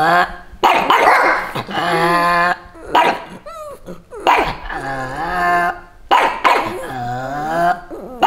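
Pugs giving repeated drawn-out, wavering howling barks, each a second or so long, with a few quick high whining glides about three seconds in.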